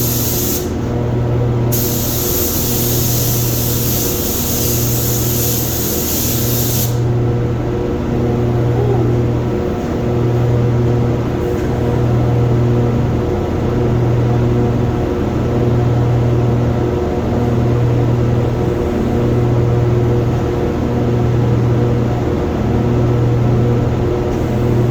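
Automotive paint spray gun hissing as base coat is sprayed: a short pull of the trigger at the start, then a longer pass of about five seconds ending some seven seconds in. Under it runs a steady low hum that swells and dips about every one and a half seconds.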